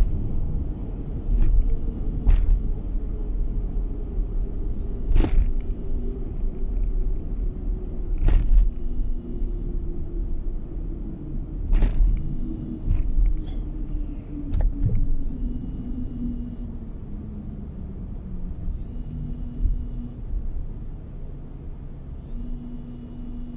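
Car driving on a winter road, heard from inside the cabin: a steady low rumble of tyres and engine, with a tone that slowly falls in pitch as the car slows. Several sharp knocks come through it at intervals.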